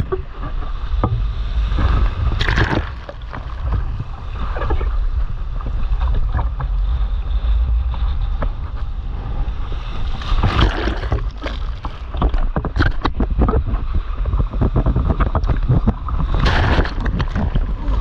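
Wind buffeting an action camera's microphone on a stand-up paddleboard riding surf, with water sloshing and rushing around the board. Louder surges of splashing come about two and a half seconds in, around ten seconds, and near the end.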